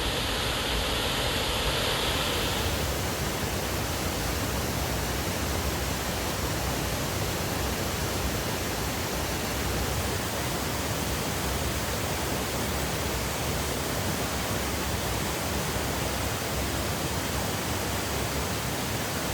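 A waterfall rushing close by: a loud, steady, even roar of falling water.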